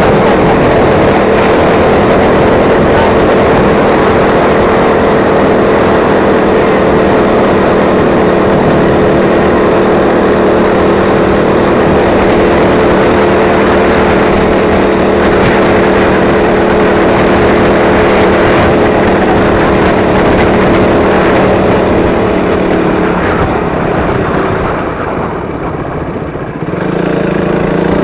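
Motorcycle engine running at a steady note while riding, under a loud rushing noise. The rush dips for a few seconds near the end, then the engine note comes back stronger.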